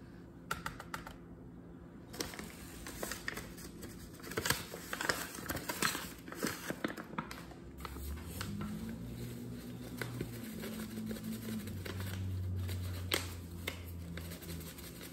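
Paper flour bag crinkling and rustling, with light taps and clicks, as flour is poured from it into a glass measuring cup. A low steady hum comes in about halfway through and lasts several seconds.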